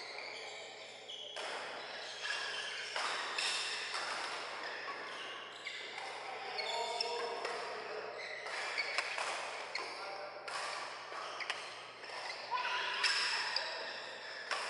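Badminton doubles rally in a large, echoing sports hall: sharp racket strikes on the shuttlecock at irregular intervals, with players' footwork on the court and voices in the background.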